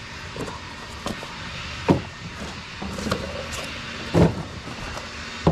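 Handling noises from unpacking new steering parts and their cardboard boxes on a truck tailgate: faint rustles and ticks, with three short knocks about two seconds in, a little past four seconds and at the end, over a steady background noise.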